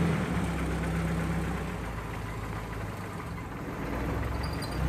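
Jeep Wrangler's engine running steadily at low speed as the Jeep creeps along the driveway, a low, even hum.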